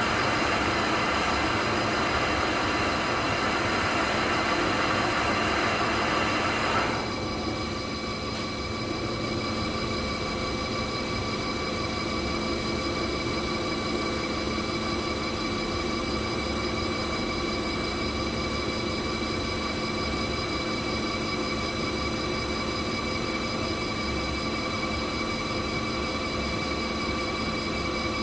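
Steady hum of textile dyeing machinery running, with several constant tones. A louder rushing noise stops abruptly about seven seconds in, and the machine hum carries on.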